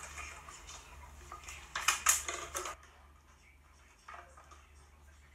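A short burst of clattering, hard objects knocking together, about two seconds in, with a fainter knock near the end, over a steady low hum. It is played back through a screen's speaker.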